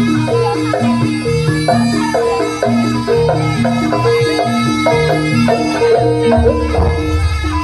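Javanese gamelan playing jaranan music: metal-keyed instruments struck in a quick repeating melody over drums, with heavier low strokes about six seconds in.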